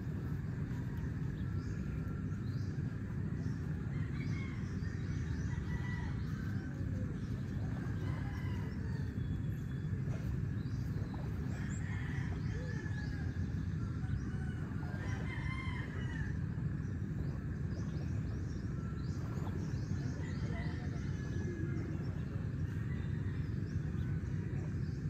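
Roosters crowing and other birds calling now and then over a steady low rush of wind and surf on the shore.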